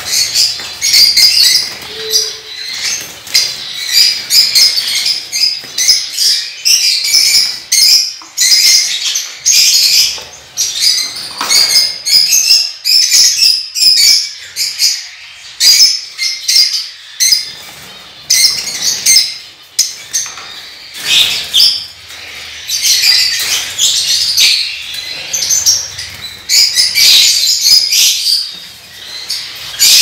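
Caged lovebirds and other small parrots chattering, a dense run of short, high-pitched chirping calls with no pause.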